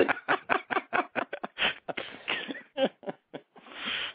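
Hard, breathless laughter from one or more men in quick rapid pulses that thin out and end in a long breath, heard over a narrow-band phone line.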